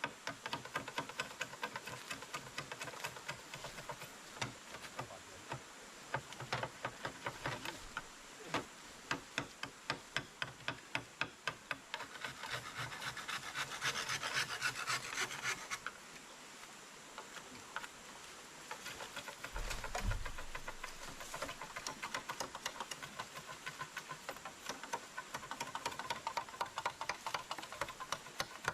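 Rapid, repeated rubbing or scraping strokes on wood, several a second, with a denser rasping stretch around the middle and a single low thump about two-thirds through.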